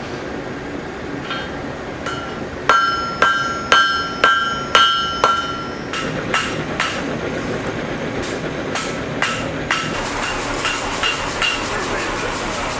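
Hand hammer forging steel on an anvil. It lands six hard blows about two a second, each with a clear ringing tone, then lighter strikes that quicken into a run of fast, light taps near the end.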